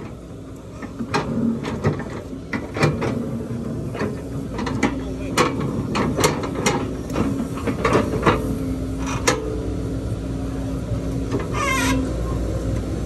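Hydraulic excavator working, its diesel engine a steady low hum under a string of sharp metallic clanks and knocks as the bucket works against the front of a stuck dump truck.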